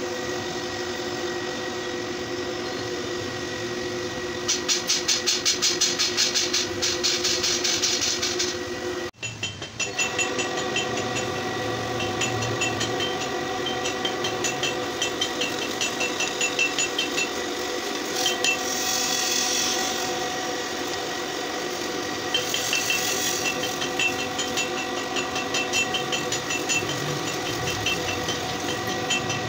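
Bench drill press motor running with a steady whine while a twist drill bit cuts into a flat steel bar, with fast ticking chatter from the cut coming and going. The sound drops out briefly about a third of the way through.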